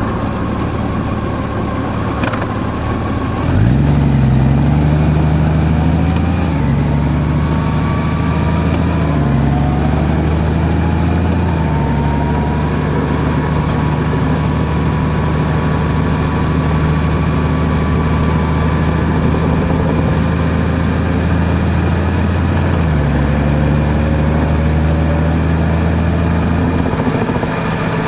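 Car engine running while driving, heard from the vehicle, with steady road noise. The engine note rises sharply about three and a half seconds in, then holds fairly steady with a few small shifts in pitch.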